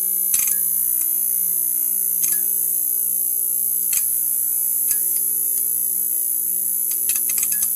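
Neon sign buzzing steadily, a low hum under a high hiss, broken by sharp electrical crackles: one near the start, single ones about two, four and five seconds in, and a quick run of them near the end.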